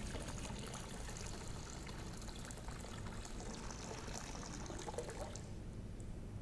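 Water poured into a baptismal font, a steady splashing pour that stops about five and a half seconds in.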